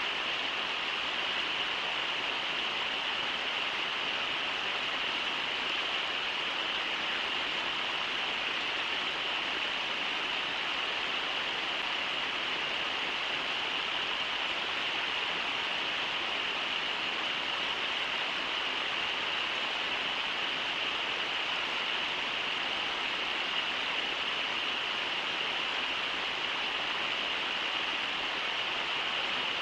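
Steady rush of shallow river water running over rocks in a riffle, an even hiss with no breaks.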